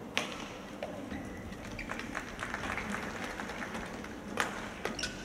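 Sharp racket strikes on a badminton shuttlecock as a rally starts, about four and five seconds in, with an earlier single crack just after the start. Under them is a steady murmur of the sports hall and its crowd.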